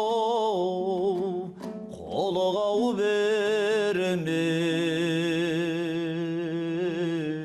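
A singer performing a Kazakh folk song, holding long wavering notes over a steady lower line. There is a brief break about one and a half seconds in, and the melody steps down to a lower sustained note about four seconds in.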